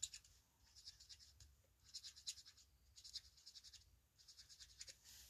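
Faint scratching of an alcohol marker's felt tip dabbing on a clear plastic embossing folder, in several short bursts of quick strokes.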